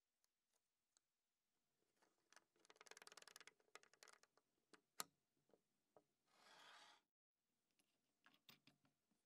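Very faint handling sounds of a small steel hinge: a quick rattle of light metal ticks, one sharp click, a short smooth rub, then a few more clicks near the end.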